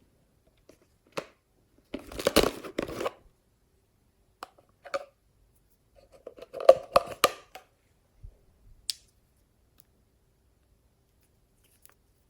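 Hands squishing and pressing slime, making crackly popping and clicking sounds. These come in two main bursts, about two and about seven seconds in, with single clicks between them.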